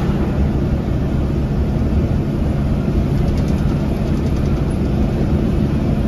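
Bharat Benz bus's diesel engine and road noise heard from inside the front cabin while cruising at highway speed: a steady low drone.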